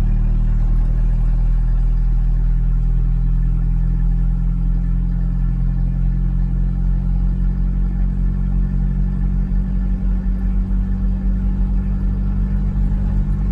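Loud truck engine and exhaust droning steadily while cruising in fifth gear, heard from inside the cab.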